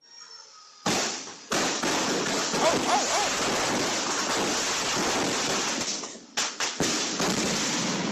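Consumer firework going off in a dense, continuous barrage of rapid gunshot-like bangs. It starts suddenly about a second in, with a few separate sharp bangs near the end. A person's voice cries out during the barrage.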